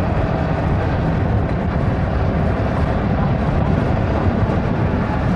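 Steady wind rush on the microphone of a moving motorcycle, with a Yamaha MT-15's 155 cc single-cylinder engine running underneath at an even pace.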